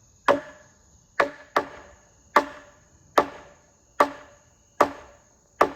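Hammer blows on a large sawn timber beam, about one strike a second, eight in all, each with a short ring, knocking the beam into place.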